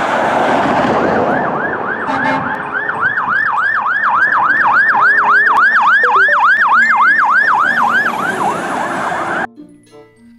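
Fire engine siren in a rapid yelp, sweeping up and down about three times a second over a noisy rush, then cutting off suddenly near the end.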